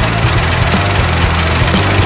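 Loud rock music with a heavy, steady drum beat and bass.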